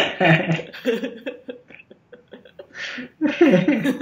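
Conversational speech: a voice talking in short phrases, with a pause in the middle.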